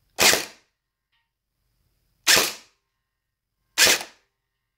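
Gel blaster firing three single shots, the first about two seconds before the second and the next about a second and a half later, each a short sharp pop.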